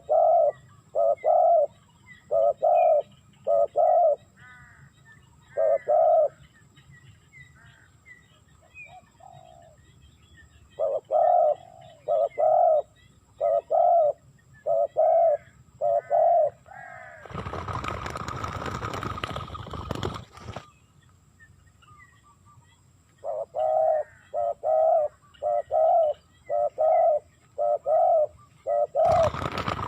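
Spotted dove cooing over and over, short coos in quick runs with a few pauses. About two-thirds of the way through, a burst of noise lasts about three seconds and drowns the calls.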